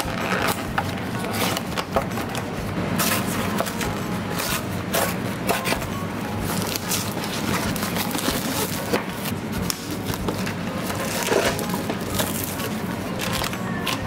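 Background music, with the crinkling and tearing of plastic shrink-wrap being peeled off a food container as short sharp crackles.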